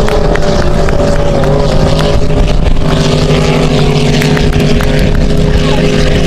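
Racing powerboat engines running with a steady drone.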